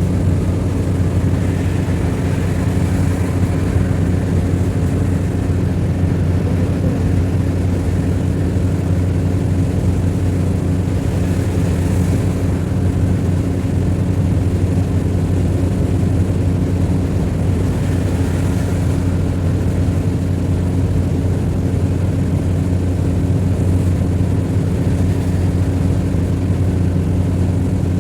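Vehicle engine running at a steady speed: a constant low drone with an even hum that does not change.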